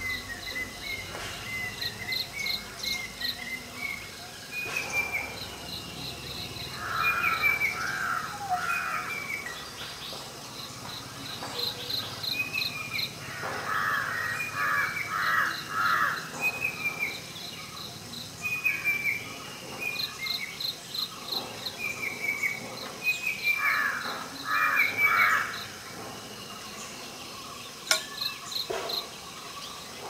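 Banded bay cuckoo singing: groups of three or four loud whistled notes, repeated several times. Insects chirp throughout in quick pulses.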